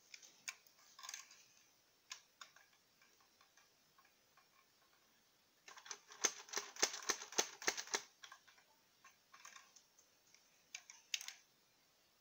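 Plastic Lego bricks of a life-size Lego P-90 model clicking and rattling as it is handled, with scattered light clicks and a dense, louder run of rapid clicks about six seconds in lasting a couple of seconds.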